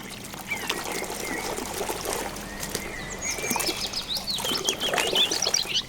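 Water splashing as a muddy toy pickup truck is washed by hand in a tub. Small birds chirp in the background, more often in the second half.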